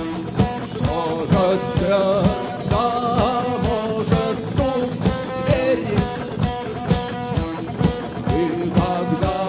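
Rock band playing: guitars and a steady drum beat of about two hits a second, with a singing voice.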